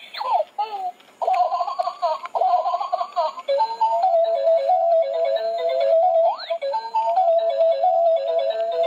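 Battery-operated crawling baby doll toy sounding its recorded baby giggles, then a tinny electronic tune with a repeating pattern of notes. A descending whistle-like swoop cuts through it twice.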